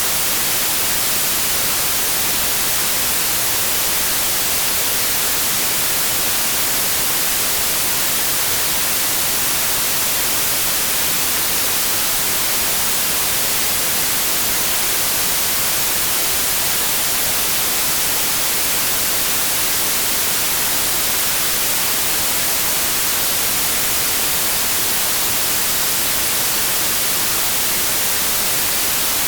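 Steady, unchanging white noise, a loud even hiss strongest in the highest pitches, played as a sleep aid for babies.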